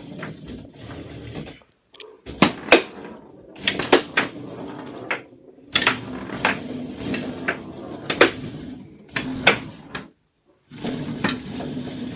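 Foosball table in play: the ball being struck by the rod-mounted players and the rods knocking against the table, about ten sharp knocks at irregular intervals over a steady low rumble.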